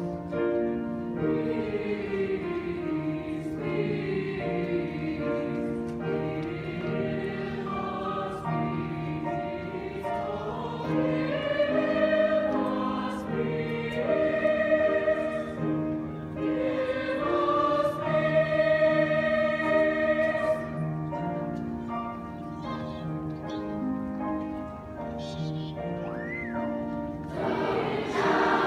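A large school choir of children and teenagers singing together, holding long notes in a flowing melody, a little louder near the end.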